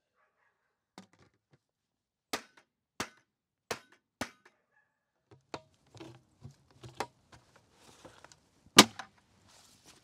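Sharp knocks of a rubber mallet on the plastic lid of a 5-gallon sap collection bucket: four strikes a little over half a second apart, then lighter clicks and plastic rattles as the lid is worked, and one louder knock near the end.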